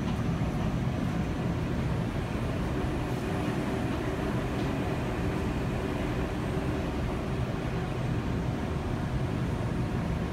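Steady low hum and rumble of an Alstom Citadis Spirit light-rail train standing at an underground platform with its doors open.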